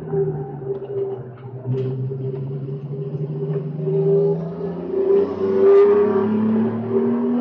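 BMW E46 race car's inline-six engine heard from inside the cockpit, accelerating hard out of a slow corner. There is a gear change about five seconds in, after which the engine note climbs again.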